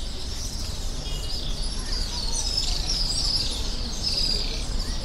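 Many small birds chirping and twittering together in a dense, overlapping chorus of high chirps, thickest from about two seconds in.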